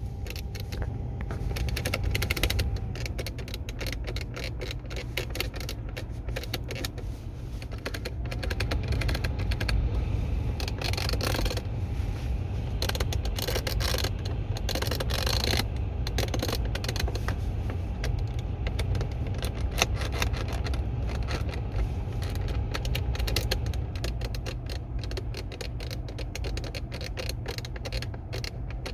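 A mechanical squeak: rapid, irregular creaking and ticking over a steady low rumble. A thin steady tone fades in and out several times.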